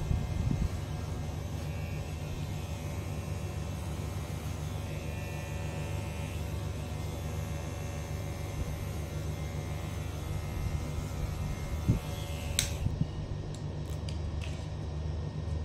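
Cordless electric hair clipper running with a steady low hum as it trims the short hair at the nape of the neck. There is a short click near the end, after which the sound grows duller.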